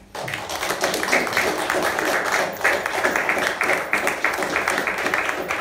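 Audience applauding. The clapping breaks out all at once and keeps up as a dense, even patter.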